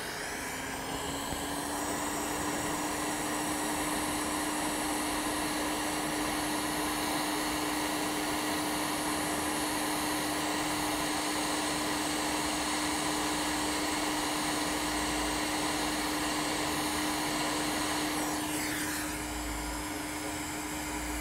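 Hot air rework station blowing a steady rush of air, with a hum that rises slightly in pitch in the first second or two and then holds, as it reflows the solder under a BIOS chip on a laptop motherboard. The rush eases a little a few seconds before the end.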